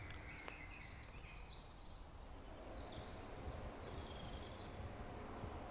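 Faint woodland ambience: a low, even background hiss with a few distant bird calls.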